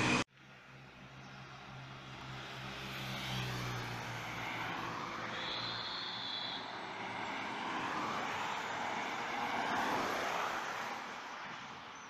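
Road vehicle passing: an engine hum and tyre noise build to their loudest past the middle and then fade as it goes by. A brief high steady tone sounds about five seconds in.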